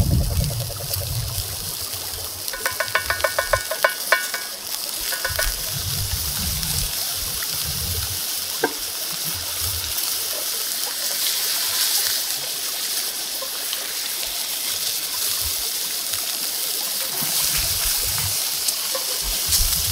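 Beef steak sizzling steadily in hot butter in a cast-iron skillet over a wood fire. A quick rattling run of clicks comes about three seconds in, and a single sharp click just before the middle.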